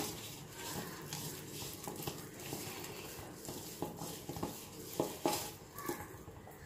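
A hand working flour, spice powder and a little water into a thick batter in a steel bowl: soft squishing and rubbing, with irregular light clicks where the fingers knock against the metal.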